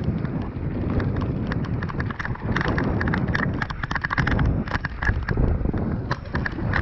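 Mountain bike riding fast down a loose, rocky dirt trail: tyres crunching over stones and the bike rattling in a quick, uneven run of sharp knocks, over a steady low rumble of wind on the microphone.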